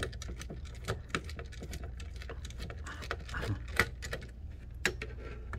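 Small screwdriver turning out a screw from a hard drive enclosure's circuit board: irregular light clicks and ticks of metal on metal and on the board, with a few sharper clicks along the way.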